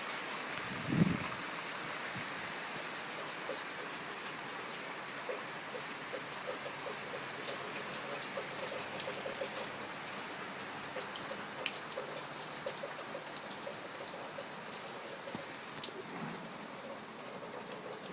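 Steady rain falling, with scattered sharper drops ticking now and then. A brief low thump sounds about a second in.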